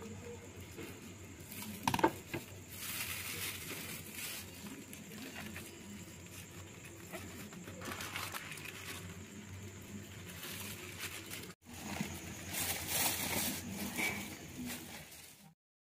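Plastic bag crinkling and rustling while a metal ladle works in an aluminium soup pot, with a sharp clink of the ladle about two seconds in. The sound cuts off suddenly near the end.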